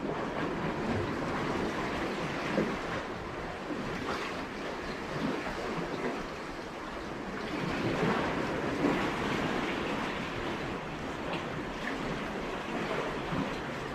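Sea waves washing against a concrete tetrapod breakwater, a steady wash that swells louder about eight seconds in, with some wind on the microphone.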